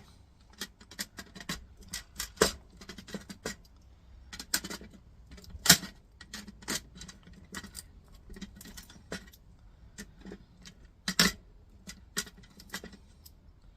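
Irregular small clicks and taps of a tool working brass pin receivers out of a plastic housing, with small metal parts clinking. Two louder clacks come about six and eleven seconds in.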